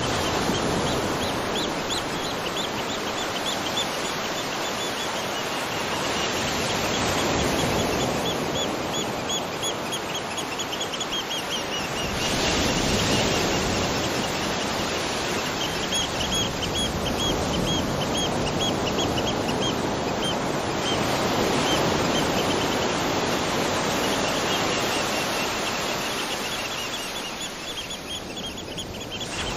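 Waterfall rushing steadily, with a bird giving runs of rapid, evenly repeated high chirps over it, several trills of a few seconds each. The water dips somewhat near the end.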